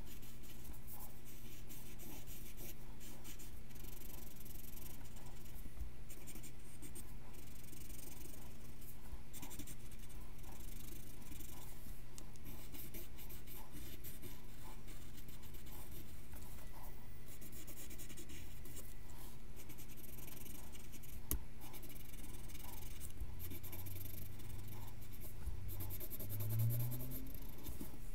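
Pencil scratching across paper in short, irregular strokes as a drawing is sketched.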